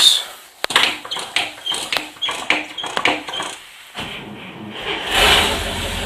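A 1973 International Harvester Loadstar bus's gasoline engine being cold-started: the starter cranks it over with an even beat of about three compressions a second, then about five seconds in the engine catches and settles into a steady cold idle.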